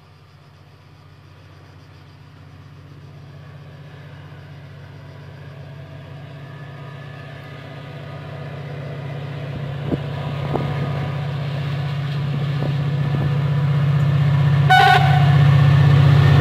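A diesel-hauled train approaching, its engine drone growing steadily louder, with a short horn blast near the end.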